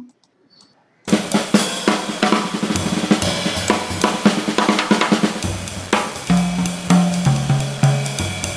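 A drum-kit music excerpt requantized to 5-bit depth starts about a second in. Snare, kick and cymbals and a bass line sit under a heavy, even hiss of quantization noise that degrades the sound.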